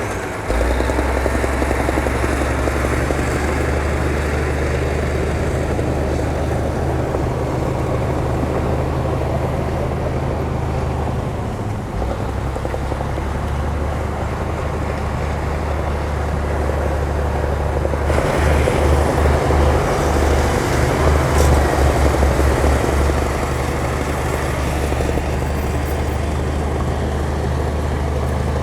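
Heavy diesel engine of an earthmoving machine running steadily, growing louder for about five seconds a little past the middle.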